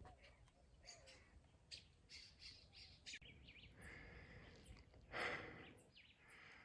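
Faint bird calls, short high chirps scattered over the near-silent scrub, with a brief louder noise about five seconds in.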